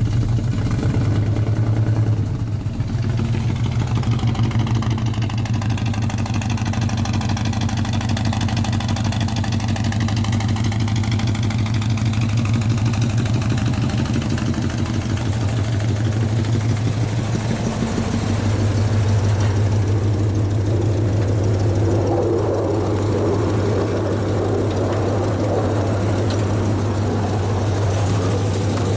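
A 1976 Chevrolet C10's V8, supposedly a 350, idling while missing badly on two cylinders even though it is getting spark and fuel.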